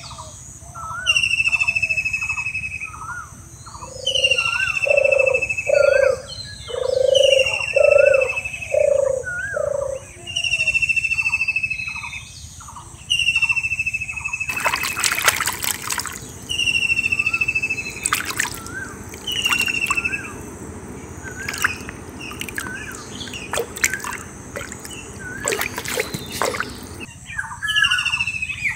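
Bird calls: a falling call repeated about every second and a half, with a run of lower pulsing calls a few seconds in. From about halfway, water trickling and sloshing with small clicks for about twelve seconds, then it stops.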